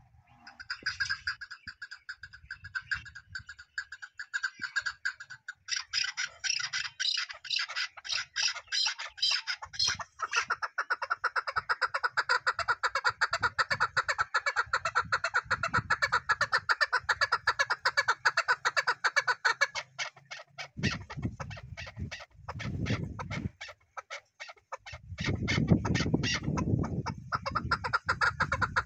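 Chukar partridge calling: a long fast run of repeated clucking notes. A low rumble comes in twice in the later part.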